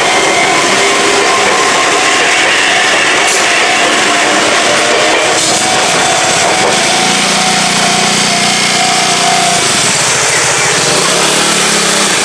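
Enoden electric train running past over a level crossing, a loud steady noise of wheels and running gear. A lower hum joins about seven seconds in.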